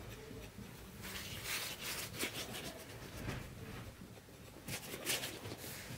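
A wooden rolling pin rolling out dough on a metal tray: a few irregular rubbing strokes, the clearest about a second and a half in and again near five seconds in.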